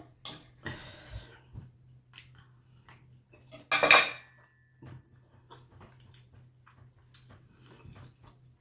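Cutlery clinking and scraping on a plate, with small clicks throughout and one loud clatter about four seconds in that rings briefly.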